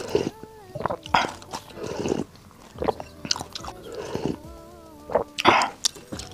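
Slurping soup broth from a wooden spoon: a string of short, wet sips roughly every half second to second, the loudest near the end, over soft background music.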